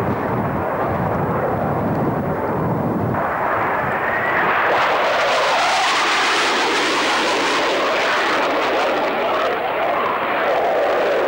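Panavia Tornado jet with its twin RB199 turbofans in afterburner making a low pass: a low rumble, then a whistle rising in pitch about three seconds in, then loud, steady jet noise as it goes by and climbs away.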